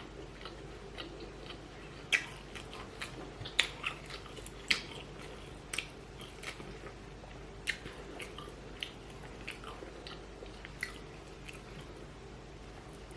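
Close-up chewing, with irregular short clicks and smacks of a mouth eating food.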